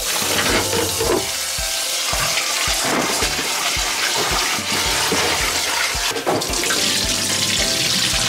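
Kitchen tap water running steadily into a small rice-cooker pot as rice and mixed grains are rinsed by hand. Background music with a regular beat plays under it.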